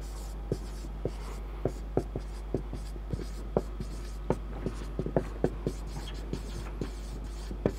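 Marker pen writing on a whiteboard: irregular short taps and strokes of the tip as letters are formed, a few each second, over a steady low hum.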